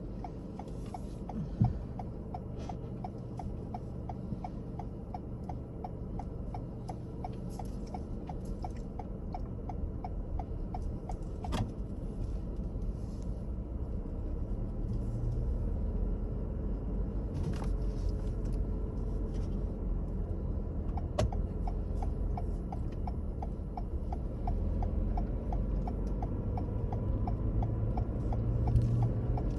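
Car driving along a road: a steady low rumble of engine and tyres that slowly grows louder. A regular light ticking, about twice a second, runs through it.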